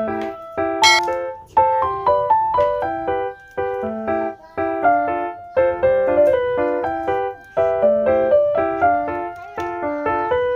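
Background music: a quick, bright keyboard melody played in short repeating phrases, several notes a second, with brief gaps between phrases.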